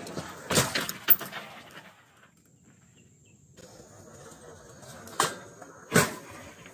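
Mountain bike riding over loose gravel: a burst of clatter and stone crunch as it drops off a concrete ledge onto the stones, then tyre crunch on gravel with two sharp knocks near the end.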